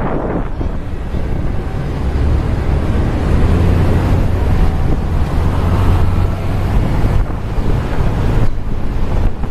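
Wind buffeting the microphone on the open top deck of a moving bus, a steady low rumble mixed with the bus and street traffic noise.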